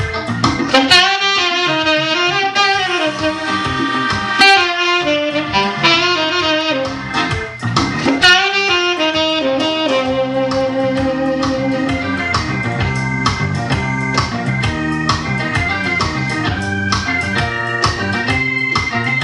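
Jazz saxophone playing a bending melody over a band with a steady drum beat; about halfway through the saxophone drops out and an organ carries on with chords.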